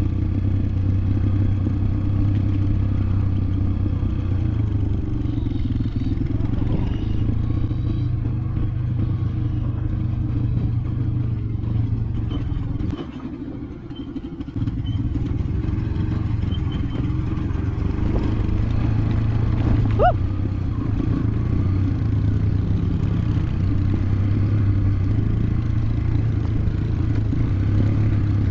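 Motorbike engine running steadily as it is ridden, its note shifting with the throttle. It drops off briefly about halfway through, then picks back up. A short high squeak sounds about two-thirds of the way in.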